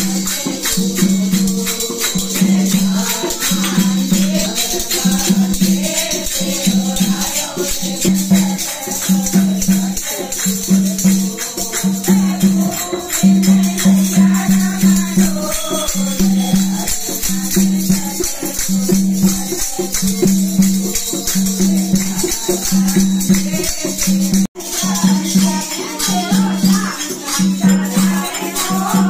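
Group of women singing a devotional kirtan together, accompanied by jingling hand-held clappers and small hand cymbals that keep a steady, regular beat.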